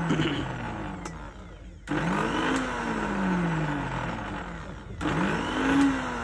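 Countertop electric blender run in short pulses, grinding fried onion, tomato, green chilli, garlic and ginger with water into a thick paste. The motor winds down at first, pauses briefly, then starts up sharply about two seconds in and again about five seconds in, each time rising in pitch and then coasting down.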